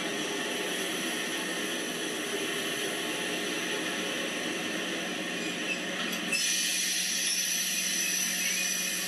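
N-scale model trains rolling over the layout's track, a steady rattling rumble. About six seconds in a steady hiss starts suddenly and carries on over the rumble.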